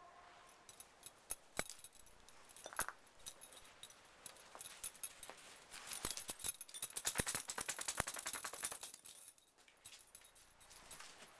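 A dog's collar tags jangling in quick metallic clicks as the dog moves about, a few scattered clinks at first, then a dense flurry for about three seconds in the middle before it stops.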